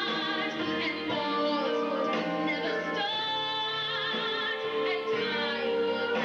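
A woman singing a slow ballad into a microphone over instrumental accompaniment, with vibrato on held notes.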